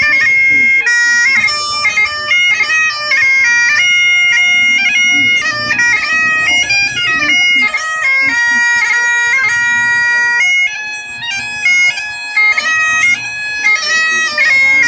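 Bagpipes playing a tune, the melody notes stepping up and down over a steady, unbroken drone.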